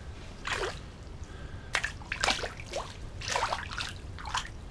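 Water sloshing and splashing in a flooded ice-fishing hole as a small lake sturgeon moves about in it: a string of short splashes and drips.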